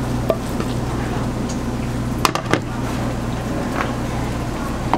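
A spatula scraping fried rice out of a frying pan onto a ceramic plate, with a few sharp clinks, two of them close together about two and a half seconds in, over a steady low hum.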